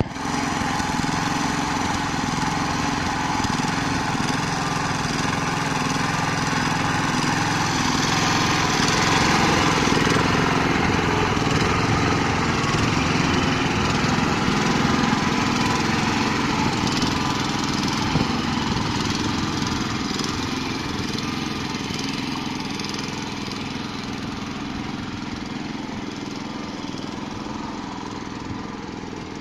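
Motoblock (walk-behind tractor) engine running steadily in first gear as it drives through a deep puddle. It grows louder to about ten seconds in as it passes close, then fades gradually as it pulls away.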